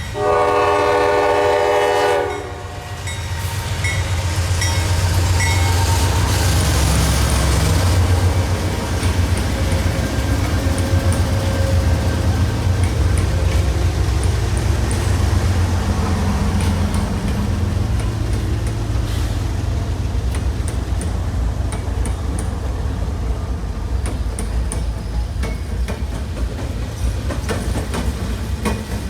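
Diesel locomotive air horn sounding one blast of about two seconds. The locomotives then pass with a loud diesel engine rumble, followed by rail cars rolling by with steady wheel clicks over the rail joints.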